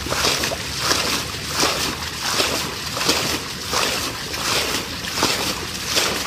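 Water splashing and sloshing in a steady rhythm, a surge about every three-quarters of a second.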